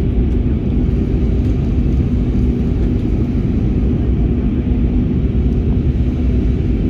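Steady cabin noise inside an Airbus A320-family airliner on its descent to land: a low rumble of engines and airflow with a couple of steady hums running through it.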